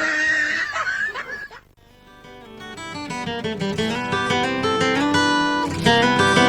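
A short voice at the start, then after a brief gap the instrumental intro of a song fades in, led by plucked acoustic guitar.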